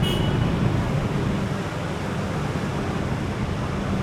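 Steady rumble of road traffic, with a short high beep right at the start.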